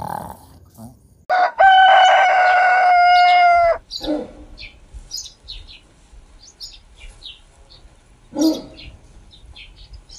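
A rooster crows once, a loud, long call of about two and a half seconds that starts about a second in. Small birds chirp afterwards, and there is one more short call near the end.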